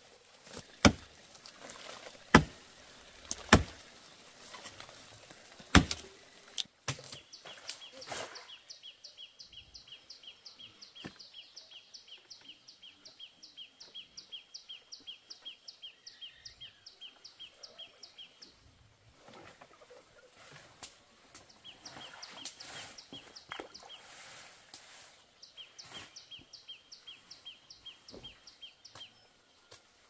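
Several sharp knocks of bamboo being chopped in the first six seconds, the loudest sounds here. Then a high chirping call repeats evenly about four times a second, for about ten seconds and again in shorter bursts later.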